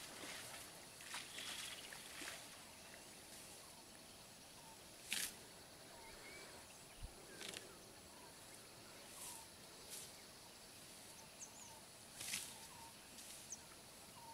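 Faint outdoor ambience: a grazing Asian elephant ripping and swishing grass with its trunk in short rustling bursts every second or two, the loudest about five seconds in. A steady high insect hum and faint bird chirps run underneath.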